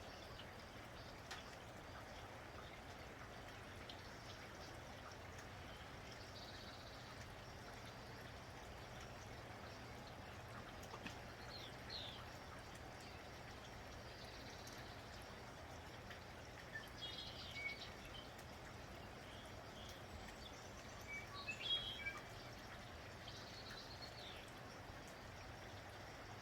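Steady, faint patter of light rain, with birds chirping in short scattered bursts every few seconds.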